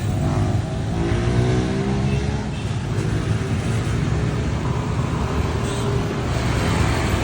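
Road traffic: a motor vehicle's engine goes by close, its pitch gliding over the first few seconds, above a steady rumble of traffic.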